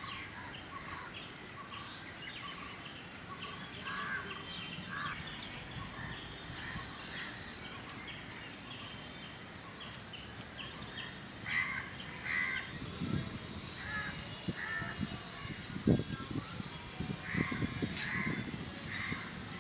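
Crows cawing over and over, with louder bursts of calls about twelve seconds in and again near the end. A few low thumps come in the second half, the loudest about sixteen seconds in.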